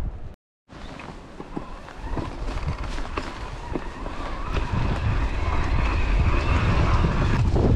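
Wind buffeting the camera microphone on an electric mountain bike being ridden along a rough track, with frequent knocks and rattles. A steady whine comes in about halfway and stops near the end.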